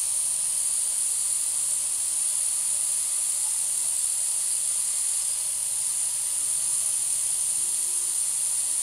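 Steady high-pitched hiss with no other events.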